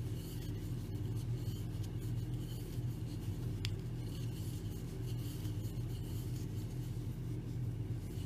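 Soft scratching and rubbing of yarn being drawn through stitches with a crochet hook, over a steady low hum, with one light tick about three and a half seconds in.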